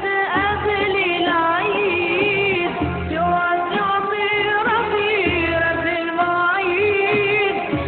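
A man singing an Arabic tarab melody into a handheld microphone, with long ornamented notes that bend and waver, over a low instrumental accompaniment.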